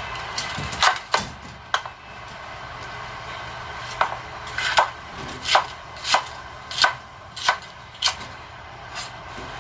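Kitchen knife chopping on a plastic cutting board, cutting green bell pepper. A few uneven cuts come first, then a run of steady strokes about every two-thirds of a second.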